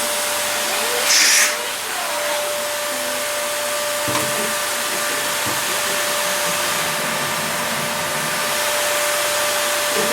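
Vacuum cleaner running steadily, used on a person's hair, with a constant motor whine over the rush of air. About a second in there is a brief, louder hiss, and a few soft low bumps come later.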